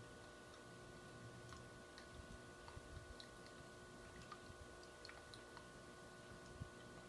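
Near silence: a faint steady hum with scattered faint ticks and clicks.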